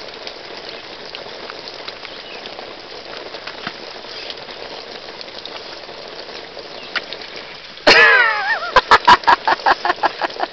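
Steady hiss of water spraying from a leaking hose fitting on an above-ground pool's filter pump, which sputters as air is bled from the system after a filter change. Near the end a much louder voice breaks in, a falling cry followed by a rapid run of short loud bursts.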